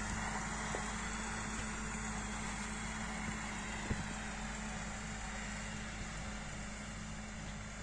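Massey Ferguson 398 tractor's diesel engine running steadily in the distance while it pulls a field sprayer, slowly fading as it moves away. A single click about four seconds in.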